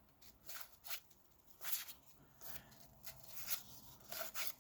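Old cardboard trading cards being slid and flipped through by hand: a string of short, soft rustles, irregular, about two a second.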